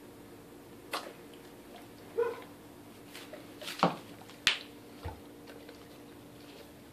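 English cream golden retriever catching a tossed Blue's Bits treat in its mouth and chewing it: about five short sharp clicks and smacks of its jaws, spaced roughly a second apart, over a faint steady hum.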